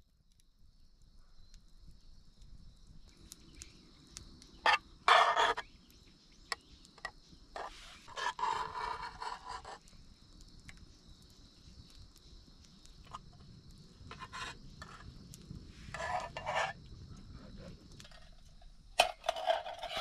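Metal spoon scraping and clinking in a metal mess tin a few times while eating, with a steady high hum and scattered small crackles from the campfire.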